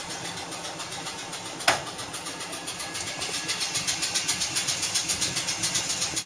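Air compressor of a 1909 ex-MBTA Type 3 electric snowplow car chugging at about six beats a second, growing louder about halfway through. One sharp click sounds about 1.7 seconds in.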